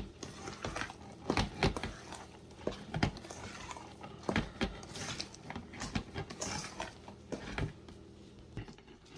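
Kitchen utensils and a mixing bowl clinking, tapping and knocking at irregular intervals, with soft handling sounds in between, as heavy cream is poured into cornbread batter.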